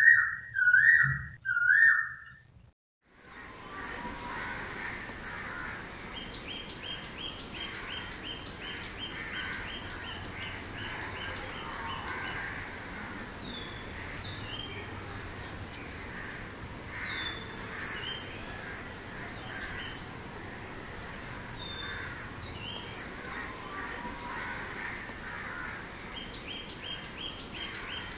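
Three loud wavering whistled notes in quick succession at the start. After a brief silence comes outdoor ambience of birds chirping, with series of rapid ticking calls and a steady high-pitched whine.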